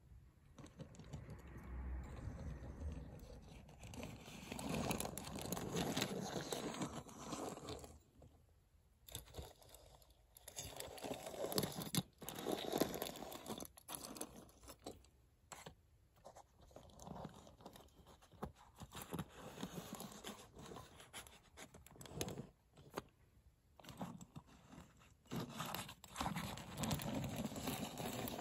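Tomica die-cast toy trucks and buses being pushed along a wooden floor and handled: rolling, scraping and clicking of the small models in irregular stretches with short pauses.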